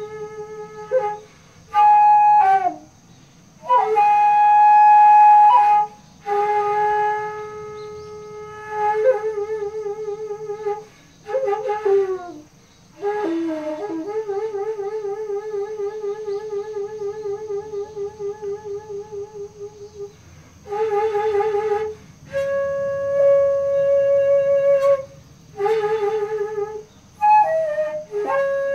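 Daegeum, the Korean transverse bamboo flute, played solo in slow phrases of long held notes that slide in pitch at their ends, with short pauses between. The longest note, near the middle, wavers in a slow, wide vibrato.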